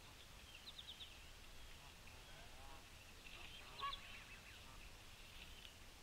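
Faint wild bird calls: a few quick high chips about a second in, then lower, honk-like calls in the middle, the loudest about four seconds in.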